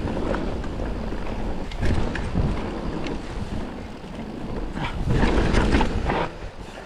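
Forbidden Dreadnought mountain bike descending a dirt trail at speed: tyres rolling over the dirt with a steady rumble and wind on the microphone, plus rattling clatter from the bike over bumps, loudest about five to six seconds in.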